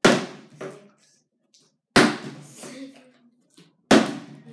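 Plastic water bottle flipped and landing on a hard surface three times, about two seconds apart: each landing is a sharp knock with a short fading tail.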